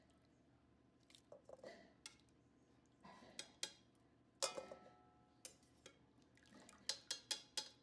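Metal kitchen tongs clicking and knocking against a crock pot and a stainless steel mixing bowl as cooked chicken breasts are lifted out of their liquid and set in the bowl. The loudest knock, a little over four seconds in, rings briefly, and a quick run of clicks comes near the end.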